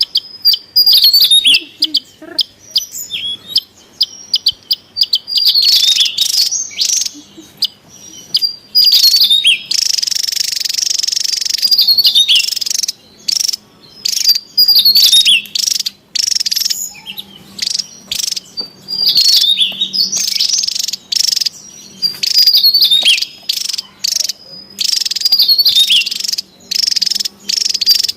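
Javan tesia calling noisily: loud, rapid, high-pitched chirps and twittering phrases repeated over and over, with a dense buzzy stretch about ten seconds in.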